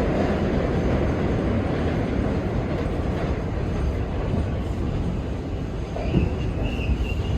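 An R32 subway car rumbling along the track, easing off slightly, as it comes into a station. About six seconds in, a high steady squeal from the wheels and brakes sets in.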